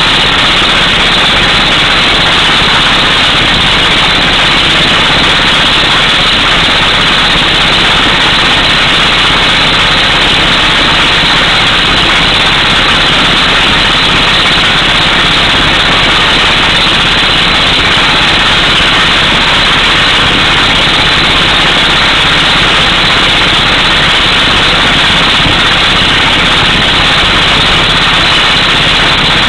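Pneumatic air hammer on a drill truck's boom drilling an 18-inch hole through solid rock: a loud, steady, rapid hammering mixed with the truck's engine running.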